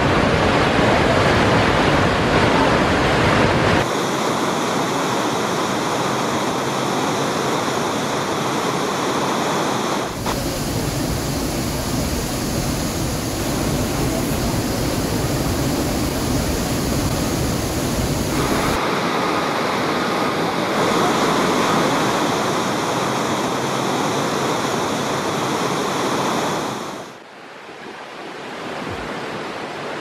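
Waterfall and white-water stream rushing: a loud, steady noise of falling water that changes abruptly a few times between takes and turns quieter near the end.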